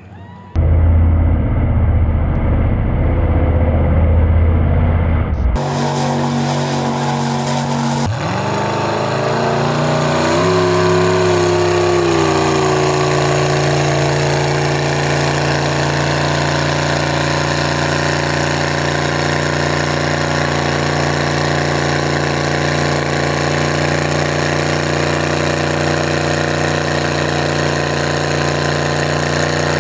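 A mud truck's engine revs up about eight seconds in, then holds a steady high-rpm drone with the truck buried in the mud pit. It is preceded by several seconds of a deep, muffled rumble.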